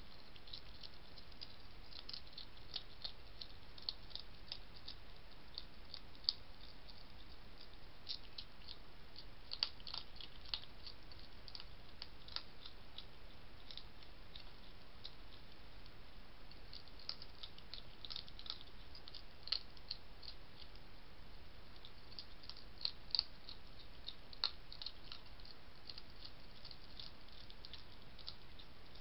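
A wild European hedgehog eating dry food from a dish: quick, irregular crunching and clicking, several a second, with a few sharper cracks, over a steady faint hiss.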